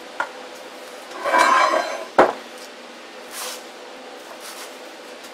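Bearing caps being pulled off a new Spicer 5-760X universal joint cross and set down on the workbench: light metal clinks, a short jangling rattle about a second in, and a sharp clink just after two seconds, the loudest, then a few faint knocks.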